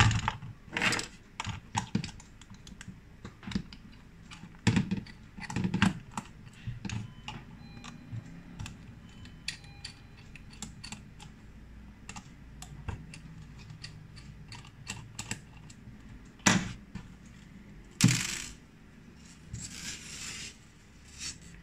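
Small Phillips screwdriver turning out the tiny screws of a plastic hard-drive case: many light clicks and ticks of metal on screw heads and plastic, with taps from handling the case. A few brief scraping sounds come near the end.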